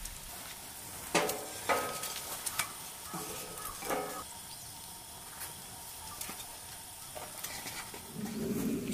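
Dry wooden kindling sticks knocking against each other and the steel fire pit as they are laid across a small fire, four sharp ringing knocks in the first four seconds. A small wood fire crackles throughout. A different, lower sound starts near the end.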